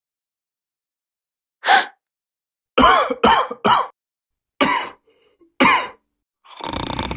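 Comedy sound-effect coughs: a short sharp gasp, then a quick run of three coughs, then two separate single coughs. A rattling snore begins near the end.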